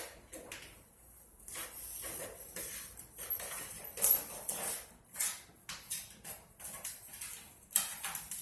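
Pencil scratching across a large porcelain tile in an irregular string of short strokes with light knocks, marking the cut line.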